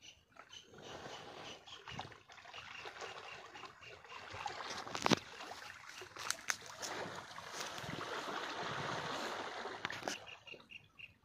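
A bull wading through a pond: water splashing and sloshing around it as it pushes into the bankside brush, with sharp snaps of twigs, the loudest about halfway through. A faint repeated high chirp runs underneath.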